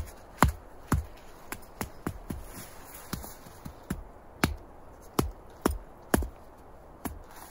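A wooden stake being driven into the ground with the back of an axe: a run of sharp wooden knocks. The blows are heavy and about half a second apart at first, lighter taps follow in the middle, and heavier blows come again near the end.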